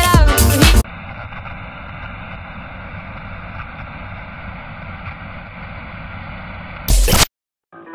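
Electro swing music with a heavy beat cuts off about a second in, giving way to a steady hiss of television static. Near the end a short loud burst breaks in, then the sound stops.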